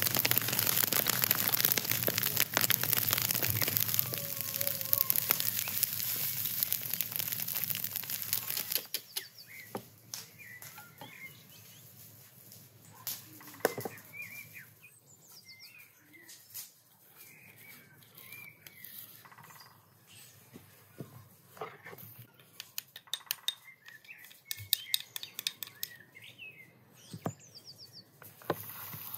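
A straw fire burning, a steady rush full of sharp crackles and pops. About nine seconds in it gives way to quieter outdoor air with small birds chirping and the occasional light tap of kitchen bowls.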